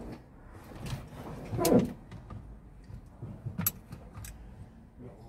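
Metal clicks and knocks of locking pliers and steering-column parts being handled, with one louder knock a little under two seconds in.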